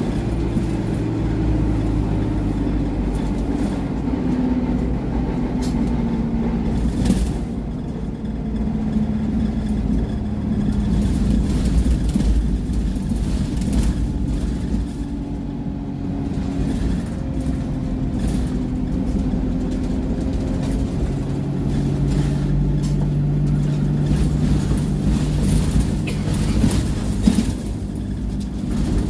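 Diesel engine of an Alexander Dennis E200 Dart single-deck bus heard from inside the saloon, running under load, its pitch rising and falling as the bus accelerates and changes gear, over a steady road rumble and interior rattles.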